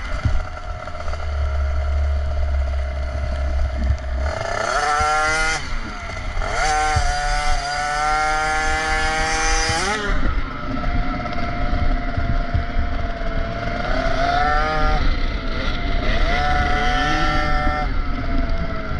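Two-stroke engine of a KTM SX 50 youth motocross bike revving hard, its pitch climbing in repeated sweeps as it accelerates and dropping as the throttle is shut, with the longest climb about halfway through. A low wind rush on the bike-mounted microphone runs underneath, strongest in the first few seconds.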